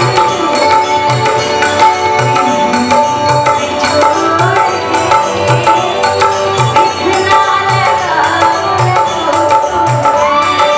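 Live Indian folk music: a tabla plays a steady beat of low, evenly spaced strokes under a harmonium holding a sustained note, while a melody glides above it.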